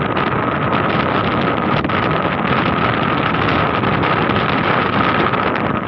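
Wind rushing loudly over the microphone, with a steady high whine underneath.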